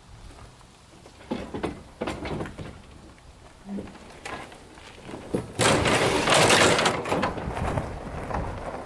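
Knocking and clattering of a plow-fitted ATV being pushed by hand backward down wooden trailer ramps: a few clunks early on, then a louder stretch of clatter and scraping lasting about two seconds, a little past halfway.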